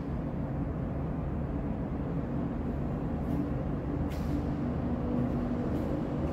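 Steady low rumble and hum of the underground car park's background noise, with a couple of faint steady tones in it and brief soft brushing sounds about three and four seconds in.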